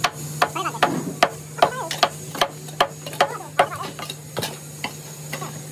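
A steady run of sharp knocks on metal, about two and a half a second, with short rising-and-falling chirps between them.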